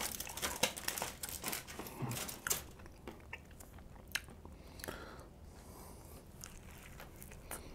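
A person biting and chewing a burrito close to a clip-on microphone: irregular small mouth clicks and smacks.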